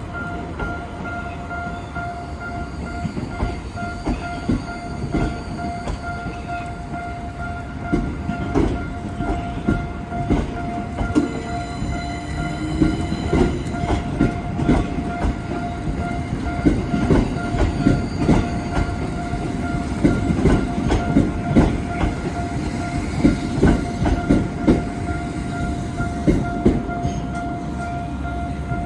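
Level-crossing alarm ringing steadily while a Tokyo Metro Ginza Line train rolls slowly across. Its wheels clack over rail joints and points, starting about eight seconds in and thickest in the second half.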